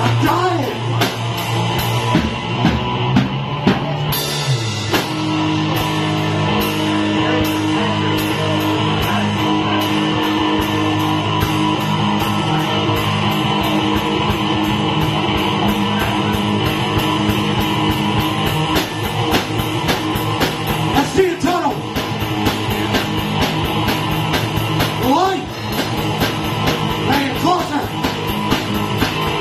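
Live rock played by an electric guitar and a drum kit, the guitar holding chords over a steady, busy cymbal beat, with a chord change about four seconds in. A voice sings short lines at the microphone about two-thirds of the way through and again near the end.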